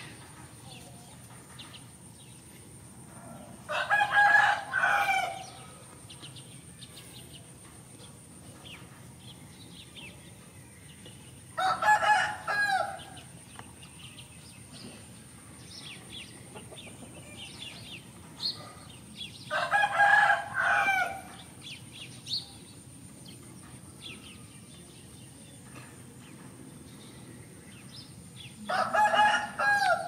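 A rooster crowing four times, about every eight seconds, each crow a call of a second and a half or so.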